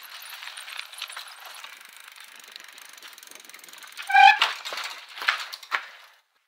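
Bicycle freewheel ticking as the wheel coasts, a fast stream of pawl clicks that slowly dies away, with a short high-pitched note about four seconds in and a few sharper clicks after it.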